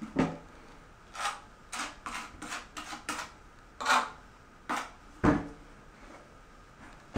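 Porcelain mosaic tile pieces clicking and clinking against each other and knocking on a hard surface as they are handled, in about a dozen short, uneven hits; one duller, deeper knock comes about five seconds in.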